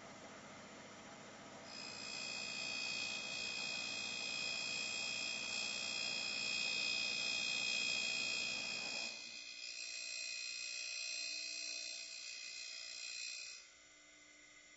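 Darex E90 end mill sharpener grinding the primary cutting edge on the end of an end mill: a steady hiss, joined about two seconds in by a loud, steady high-pitched grinding whine. The hiss stops about nine seconds in, and the whine cuts off suddenly near the end.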